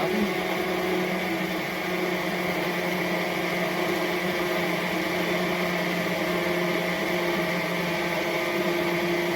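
MIAOKE portable USB-rechargeable personal blender running steadily, its six-blade motor pulverizing strawberries in water with an even, not too loud hum.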